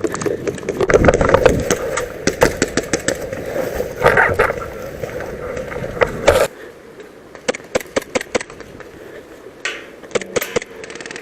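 Footsteps and rattling gear of an airsoft player moving off at a run, with clatter and rubbing on the body-worn cameras. The run cuts off suddenly about six and a half seconds in, and scattered sharp clicks and knocks follow.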